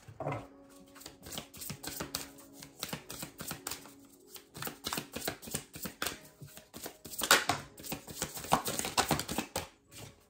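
A deck of tarot cards being shuffled and handled: a quick, irregular run of light card flicks and clicks, busiest a few seconds before the end.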